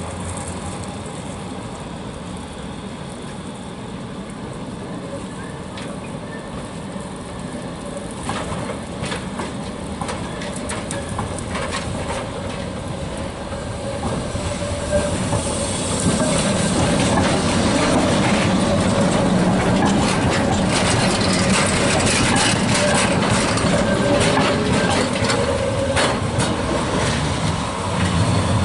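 Historic Konstal tram rolling over the rails, its wheels clattering across rail joints and points. The clatter grows louder as it comes close, about halfway through, and a wavering whine from the wheels or motor runs under it.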